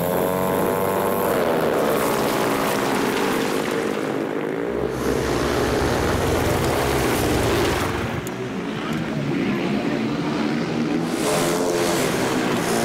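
Speedway motorcycles racing, their single-cylinder methanol engines running hard with the pitch rising and falling as they slide through a turn.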